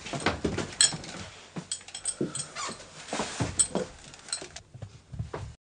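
Irregular soft knocks, scuffs and a few sharp light clicks of people moving about and handling things, with no speech; the sound cuts off suddenly near the end.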